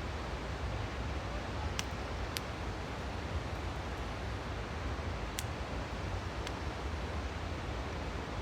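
Steady rush of a fast-flowing river, with a handful of sharp pops and crackles from a campfire.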